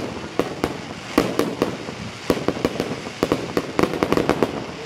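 Fireworks going off: an irregular run of sharp bangs and cracks from bursting shells, coming thickest about three seconds in.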